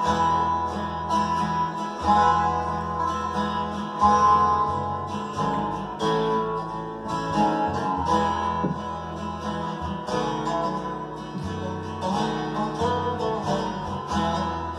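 Acoustic guitar playing an instrumental break between sung verses of a slow country song, plucked notes over a walking bass line.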